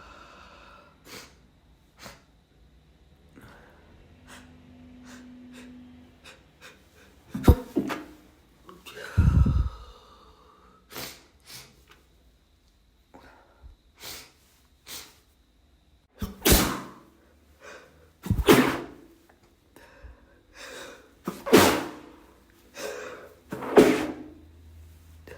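A person stifling a series of sneezes: several short, sharp, muffled sneezes a few seconds apart, with quick catching breaths between them. They come more often in the second half.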